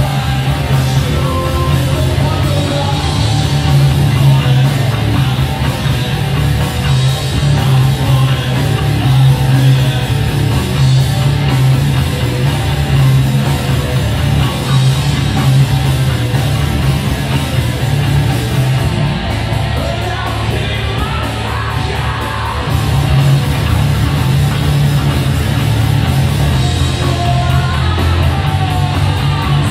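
Live rock band playing loud on electric guitars and drums, with a slightly quieter passage about two-thirds of the way through.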